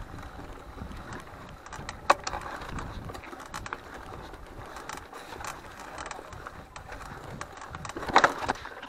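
Mountain bike rattling and clicking as it goes over a rocky trail, with scattered sharp knocks, a strong one about two seconds in and a quick cluster near the end, over a low rumble of wind on the microphone.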